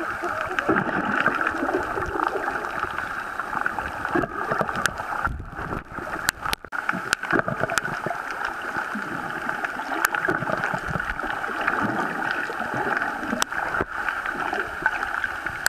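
Muffled underwater water noise with gurgling, picked up by a submerged camera, with a few sharp clicks scattered through it.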